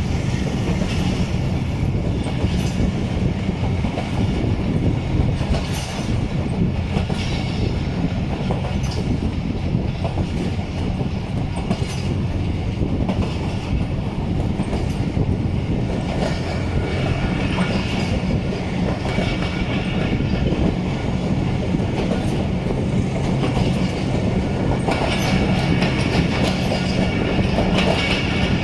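Passenger train running along the track: wheels clattering over rail joints with irregular clicks, over a steady low drone and rumble.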